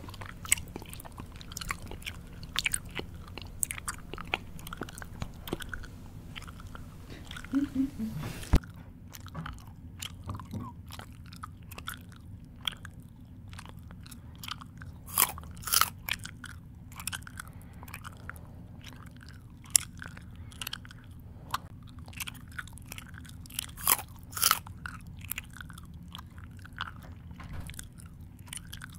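Close-up mouth chewing: irregular crunchy bites and mouth clicks, with a few louder crunches.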